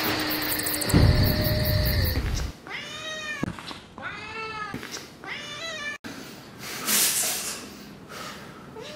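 Music ends about two and a half seconds in. Then a Sphynx cat gives three drawn-out meows in a row, each rising and falling in pitch, which the owner reads as the cat being very angry.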